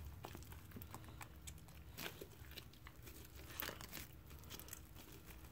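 Faint crackling and sticky tearing of glue-and-shaving-cream fluffy slime being squeezed and pulled apart by hand, with scattered small snaps, a few slightly louder about two seconds in and past three and a half.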